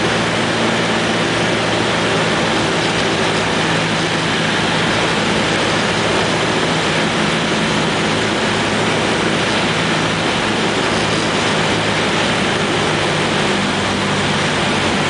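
Cessna 172's piston engine and propeller running steadily on final approach to landing, heard inside the cabin with wind noise over it.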